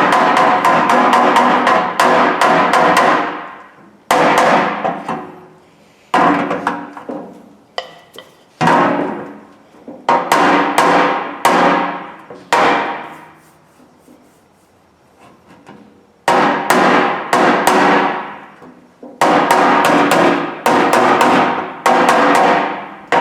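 Body hammer tapping dents out of the toolbox's sheet steel in flurries of quick blows, the thin metal ringing after each flurry and fading. There is a quieter pause about two-thirds of the way through.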